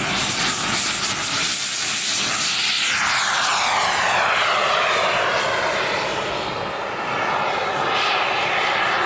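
Radio-controlled model jet taking off and climbing away, its engine a loud rushing whine. About three seconds in, the sound sweeps down in pitch as the model passes by.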